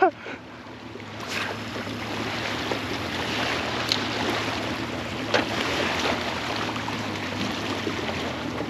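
Small boat under way on choppy water: a steady low motor hum under the rush and slap of water and wind, with a few light knocks.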